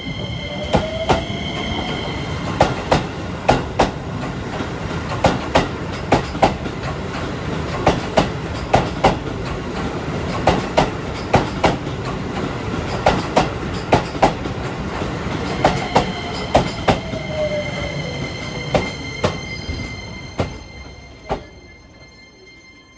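Keisei 3050-series electric train (set 3056) running past at low speed. Its wheels click over the rail joints, mostly in pairs, over a steady rumble and a steady high whine. The sound fades over the last few seconds as the train draws away.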